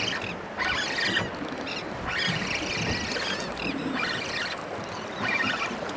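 Spinning reel being cranked in short spurts against a hooked speckled trout on a bent rod: a squeaky whirring that comes and goes about once a second, over lapping water.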